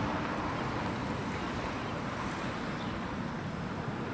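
Steady rushing outdoor noise, wind or distant traffic, with no clear single event.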